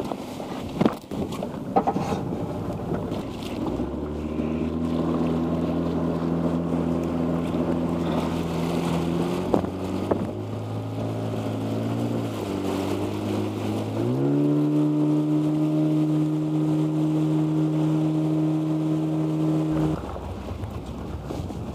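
An engine running steadily over wind noise on the microphone. Its pitch dips around twelve seconds in, rises again a couple of seconds later, and then stops abruptly near the end.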